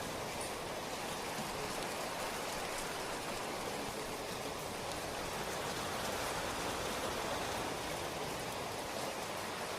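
Steady rainfall, an even hiss of drops with faint individual patters on a surface.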